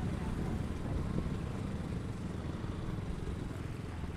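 Motorcycle engine running under way, a steady low rumble.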